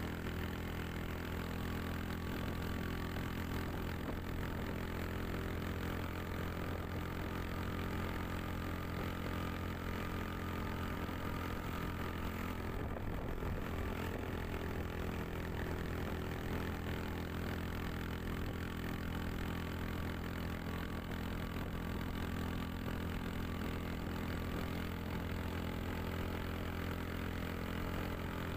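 Steady vehicle engine and road hum heard from on board, an unchanging low drone with no rise or fall in pitch.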